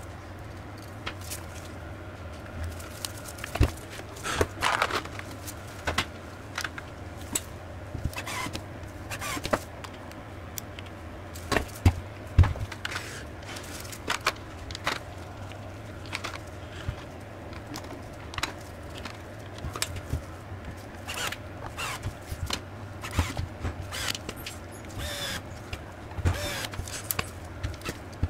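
Irregular clicks, clacks and scrapes of a Makita DTW281 cordless impact wrench's housing and small parts being handled and fitted together on a steel workbench, a few sharper knocks among them, over a low steady hum.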